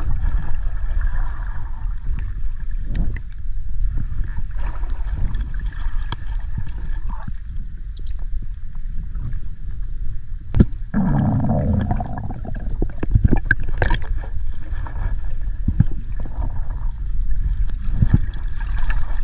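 Underwater sound picked up by an action camera during a freedive: a steady, muffled low rumble of water with scattered clicks and knocks. A louder burst lasting about a second comes about eleven seconds in.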